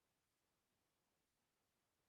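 Near silence: the audio is essentially muted, with only a faint noise floor.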